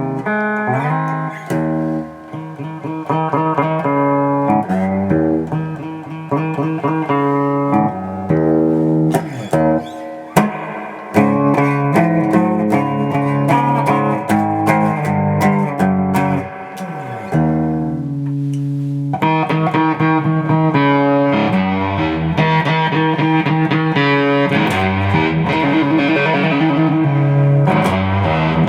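1986 Fender Contemporary Telecaster electric guitar being played, a run of notes and chords to check that the repaired pickup selector switch works; the sound turns brighter and denser about two-thirds of the way in.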